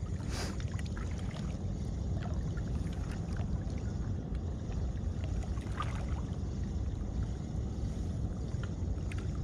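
Steady low rumble of wind buffeting the microphone over open water, with no clear tone or rhythm; a brief swish just after the start.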